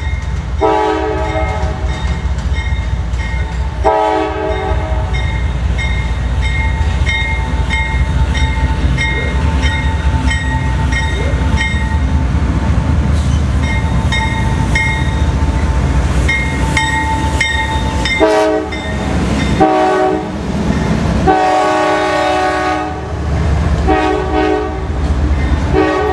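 Horn of a CSX freight train's diesel locomotive sounding repeated blasts as the train approaches and passes: two blasts near the start, a stretch of engine rumble, then a run of five shorter blasts in the last third. The passing rail cars clatter under the low locomotive rumble.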